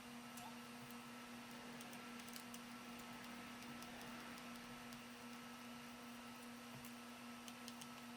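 Very quiet steady electrical hum with a scattering of faint light clicks and ticks, as of small hand tools working at the metal tabs and screws of a circuit board.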